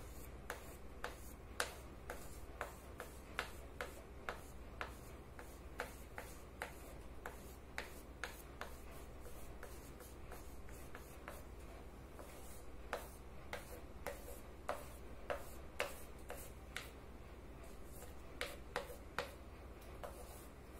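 Oil pastel scratching across paper in short colouring strokes, an irregular run of quick sharp scratches about two a second, with a pause around the middle. A faint steady low hum lies underneath.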